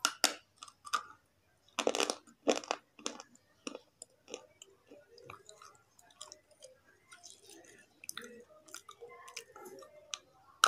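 A slate pencil, a stick of soft stone, bitten and chewed: several sharp snaps in the first three seconds as pieces break off between the teeth, then softer, gritty crunching as they are chewed.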